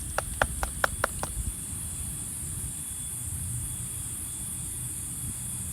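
A quick run of about six light taps or clicks over roughly a second, then a steady high hiss over a low outdoor rumble.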